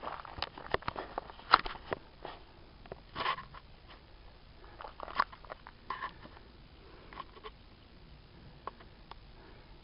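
Close handling and movement noise: scattered clicks, crackles and rustles, busiest in the first six seconds and thinning out towards the end.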